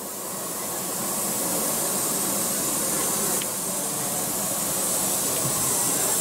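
Steady hiss of steam escaping from a standing ČSD class 475.1 steam locomotive. It swells over the first couple of seconds and then holds.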